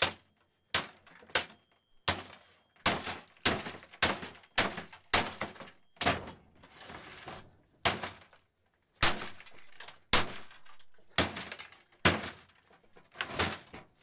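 Claw hammer striking the plastic-and-metal body of a 1982 Brother Cassette 3912C electric typewriter again and again: about twenty sharp blows, one or two a second.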